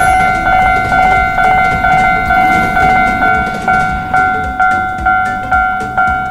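Japanese railroad crossing warning bell ringing its "kan kan" alarm, an even two-tone ding struck about twice a second, each strike dying away before the next.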